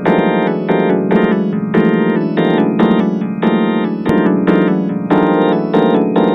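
Electronic, vocoder-like keyboard chords struck as short stabs in a quick repeating rhythm, from the 4ormulator vocoder effect. A sharp click about four seconds in.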